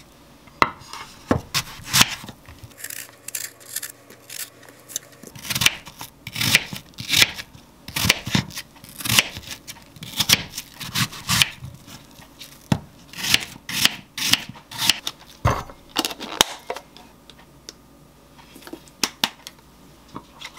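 Kitchen knife peeling and cutting an apple on a wooden cutting board: a long run of short scraping, slicing strokes.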